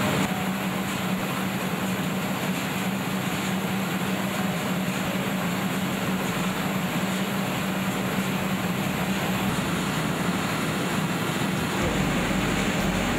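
Soap-noodle plant machinery, the duplex plodder line extruding soap noodles, running steadily with a constant hum over an even mechanical hiss. A deeper low rumble joins near the end.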